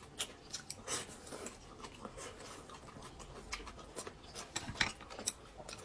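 Close-miked eating sounds: irregular chewing with small wet mouth clicks and smacks.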